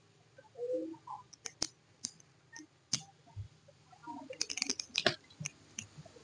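Buttons on a handheld phone-repair programmer box clicking under a finger as a Wi-Fi password is typed in: irregular single presses, then a quick run of presses about two-thirds of the way in.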